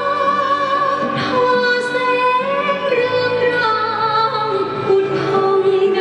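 Music with a woman singing slow, long-held notes with a slight vibrato, stepping between pitches.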